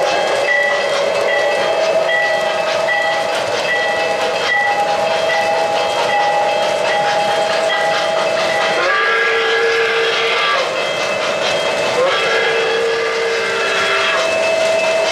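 Model steam locomotive sound system playing a multi-note steam chime whistle, blown twice for about two seconds each, the first about nine seconds in. Before that there is a steady running beat of about two strokes a second.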